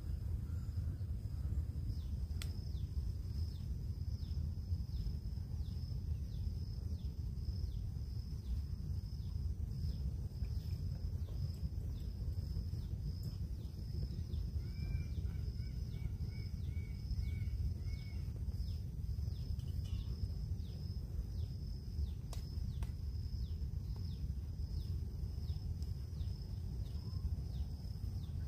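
Woodland ambience: a steady high insect-like drone pulsing with quick ticks, a bird calling a short run of about six repeated notes about halfway through, over a low steady rumble.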